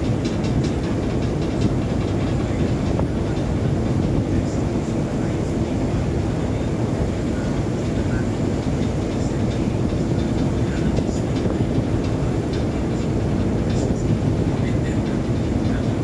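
Steady low rumble of a ship under way: its engine drone mixed with the rush of water along the hull.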